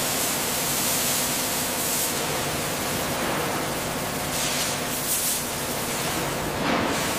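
Steady, loud hiss of a CNC cutting torch slicing through thick steel plate, sparks spraying, swelling brighter a few times.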